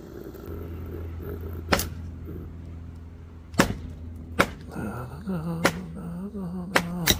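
Hatchet chopping into a log standing on a chopping block: several sharp strikes at uneven intervals, most of them in the second half.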